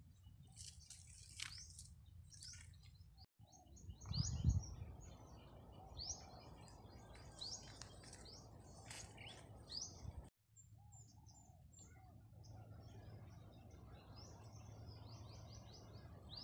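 Small birds chirping in quick, short calls over a faint low rumble; a louder low rumble about four seconds in is the loudest thing heard. The sound drops out for an instant twice, at cuts between shots.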